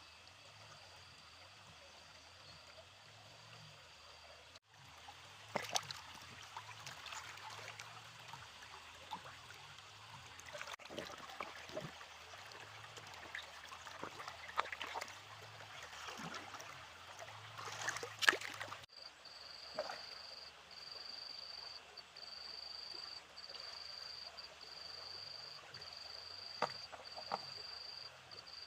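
Stream water trickling and flowing, with scattered sharp knocks and splashes through the middle. A steady high-pitched tone with brief dropouts comes in about two-thirds of the way through.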